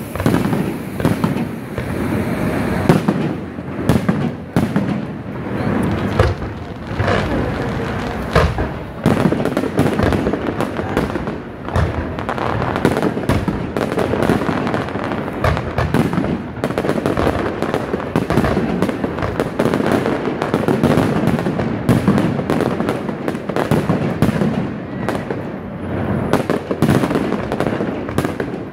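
A dense, continuous barrage of aerial fireworks: rapid overlapping bangs of bursting shells, with no let-up.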